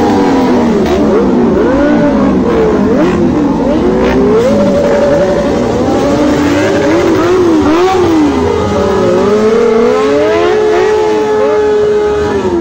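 Several sport motorcycles running at low speed, their engines revving, with overlapping pitches rising and falling and now and then held steady for a few seconds.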